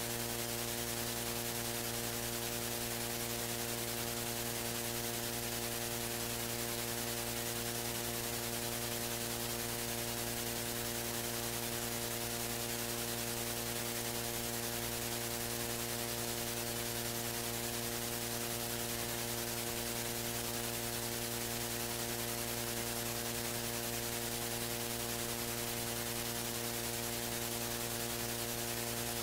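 Steady electrical mains hum, several buzzing tones stacked together, with a constant hiss over it and no other sound.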